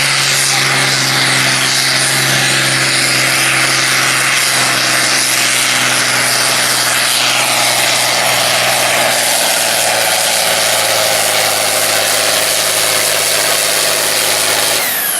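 International farm tractor's engine at full throttle, pulling the weight-transfer sled in a tractor pull: a loud, steady pitch that holds for the whole run, then drops off sharply right at the end as the throttle comes off.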